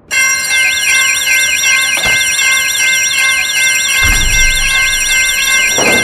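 Several railroad crossing warning signals sounding together, starting suddenly: steady ringing tones layered with a fast warbling electronic alarm, about five warbles a second. A short thump comes about two seconds in, and a rushing train noise joins near the end.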